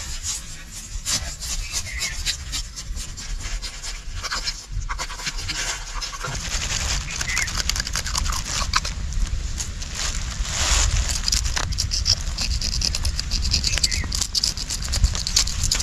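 Small knife scraping the scales off a large whole red snapper: fast, dense scratching and clicking strokes. A low rumble joins about six seconds in.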